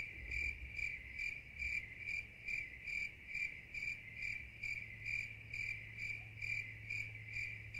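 Cricket chirping in an even, unbroken rhythm, about two and a half chirps a second, all at one pitch. It sets in abruptly at a cut, as a 'crickets' sound effect laid in after an awkward silence.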